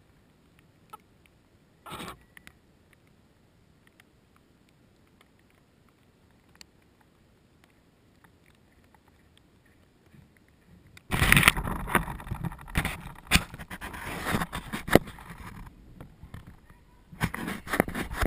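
Camera lying in grass, faint for about ten seconds apart from a short rustle about two seconds in. From about eleven seconds it turns to loud, irregular scraping, rustling and clicking: hands handling the camera housing and brushing the grass as it is picked up.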